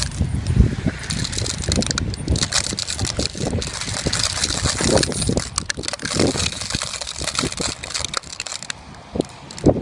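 Metal tire chains clinking and rattling as they are fitted around a pickup truck's tire, in irregular clicks and knocks.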